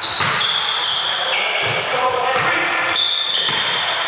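A basketball being dribbled on a hardwood gym floor, bouncing repeatedly, with high, shifting sneaker squeaks as players cut and defend.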